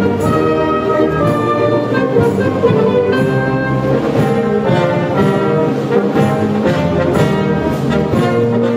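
Live military band playing a piece with brass to the fore: sustained chords with steady note changes.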